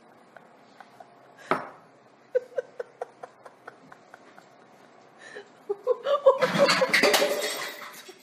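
A few light taps and clicks, then from about six seconds in a loud, noisy burst of commotion with a person laughing.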